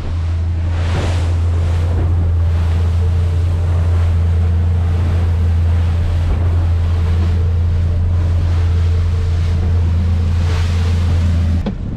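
Boat running at speed through wind-driven chop: a steady low engine drone under the rush of the hull slapping waves and spray, with heavy wind noise on the microphone. The drone cuts off abruptly just before the end.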